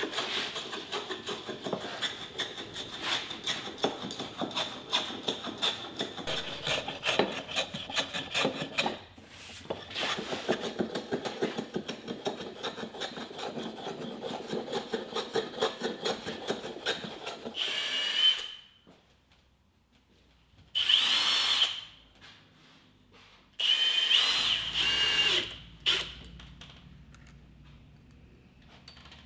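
A hand tool works wood in rapid, rhythmic scraping strokes for about eighteen seconds. Then a small power-tool motor runs in several short bursts of a second or so each.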